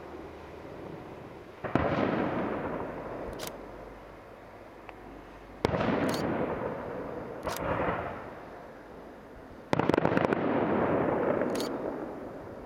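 Aerial firework shells bursting: three loud bangs about four seconds apart, each followed by a long rolling echo, with a quick string of cracks just after the third.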